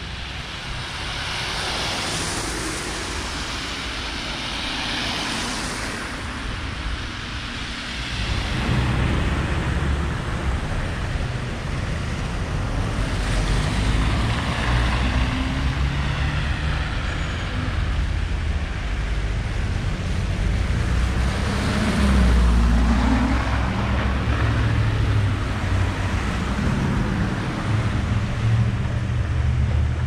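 Street traffic: several cars pass one after another, their engine and tyre noise swelling and fading, with a steady low rumble from about eight seconds in.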